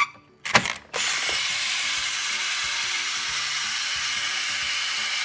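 Clicks as the toast is pushed down into a Hello Kitty toy toaster, then a steady hiss for about four seconds: the toy's toasting sound while the toast is down.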